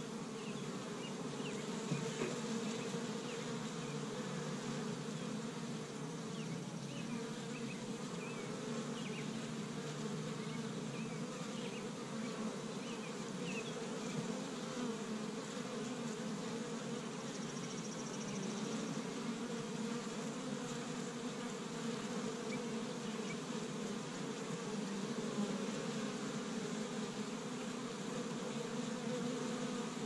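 Steady hum of many honey bees buzzing as they fly in and out of the entrance of a busy, active hive.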